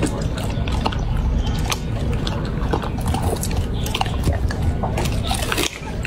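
A chocolate Labrador licking and chewing raw food: wet smacking and lapping with many sharp clicks, as it mouths a raw duck head.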